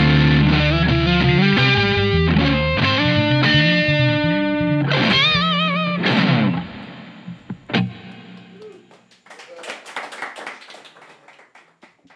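Electric guitar through effects pedals and an electric bass playing a closing instrumental passage. A little over six seconds in, after a wavering held note, the playing drops off suddenly to a few scattered, quieter guitar notes and one sharp pluck that fade out.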